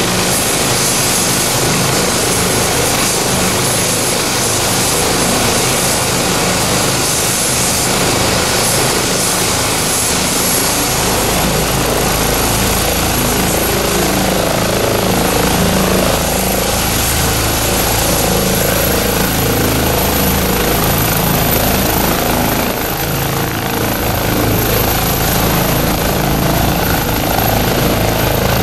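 Eurocopter EC135 twin-turbine rescue helicopter running on the ground and powering up for take-off: a steady high turbine whine that slowly rises in pitch over the rush of the main rotor, with a deep rotor beat growing in about eleven seconds in as power comes up.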